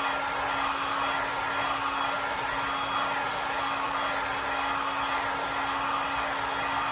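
Hot-air blower running steadily, drying a freshly applied coat of acrylic paint: an even rush of air with a constant low motor hum beneath it.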